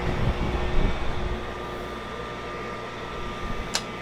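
Low knocks and rustling from handling for about the first second and a half, then a steady background hum, with one sharp click near the end.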